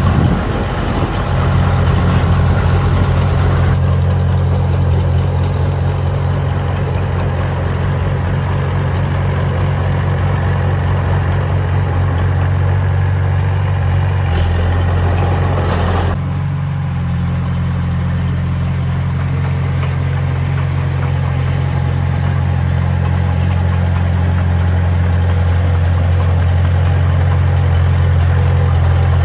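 Heavy construction-machine diesel engine running steadily with a low drone. Its note shifts briefly about sixteen seconds in.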